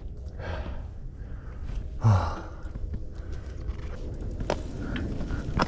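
A mountain biker breathing hard, with heavy sighing exhales about half a second in and just after two seconds, over a steady low rumble of riding noise and a few sharp clicks near the end.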